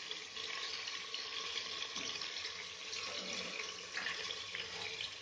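Mutton and ginger-garlic paste sizzling steadily in hot oil in an aluminium pressure cooker as they are stirred with a slotted spoon, the first browning of the meat.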